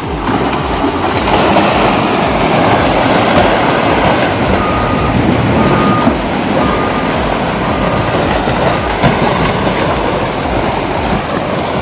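Loud, steady rumbling noise of a heavy vehicle or machine. Four short, evenly spaced beeps sound about a second apart in the middle.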